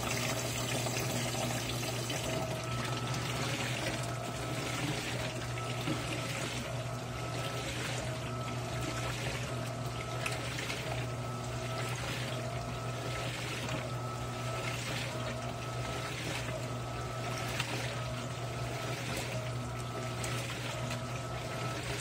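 Electrolux LAI17 17 kg top-load washing machine agitating a load of sheets in low water on its turbo setting: a steady motor hum under water sloshing in regular surges about once a second, the surges starting about two seconds in as the fill ends.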